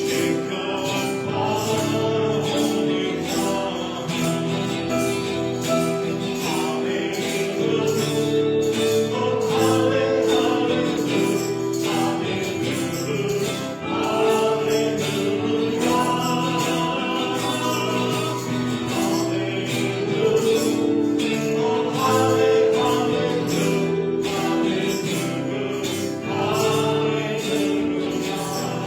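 Gospel-style worship music with a choir or sung voices over sustained chords and a steady tambourine-like jingle beat.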